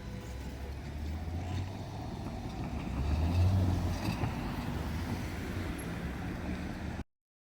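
Diesel railcar engine rumbling as the train moves past, loudest about halfway through, then cutting off abruptly near the end.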